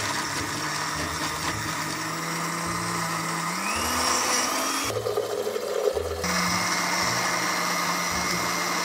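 Countertop blender running, churning cheeseburgers and liquid into a thick slurry. Its motor tone rises in pitch about three and a half seconds in, turns rougher for a second or so around the middle, then runs steady again.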